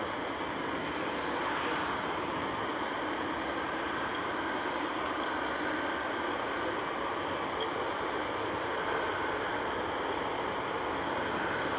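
Steady, even noise of a Boeing 747-8 Freighter's four GEnx-2B turbofans at low taxi power, heard from a distance.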